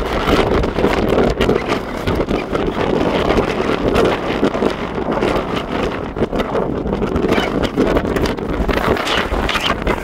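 Wind rushing and buffeting over the microphone on the deck of a moving ferry, with the ship's low rumble underneath.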